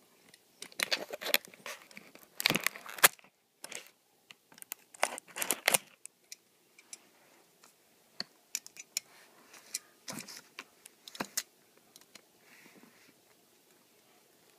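A cardboard box and its packaging being pried open and handled: tearing, crinkling and scraping in two busy bursts in the first six seconds, then scattered clicks and rustles of handling.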